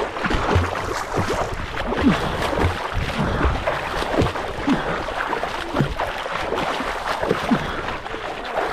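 Water splashing and sloshing continuously as a person wades across a cold river.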